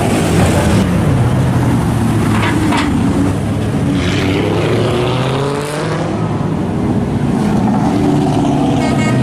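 Car engine accelerating away, its pitch rising for a couple of seconds in the middle, over a steady traffic rumble.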